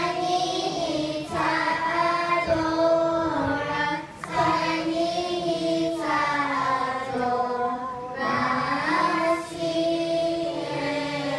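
Children's choir singing in unison, in long held phrases with a short breath about every four seconds.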